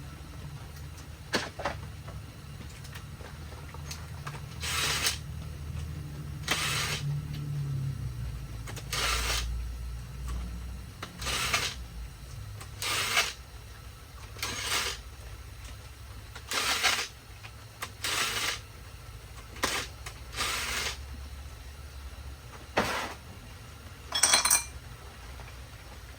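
Ryobi impact wrench fired in about a dozen short bursts, each about half a second long and one to two seconds apart, hammering at a stubborn crankshaft pulley bolt to break it loose.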